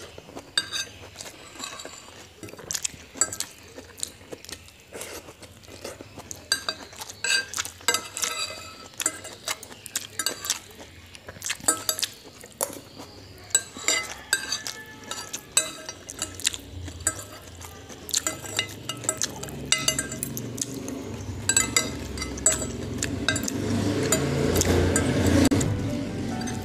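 Metal spoon and fork clinking and scraping on a ceramic plate, many sharp clinks, as the last scraps of fried noodles are gathered off a nearly empty plate. A duller, louder eating sound swells toward the end.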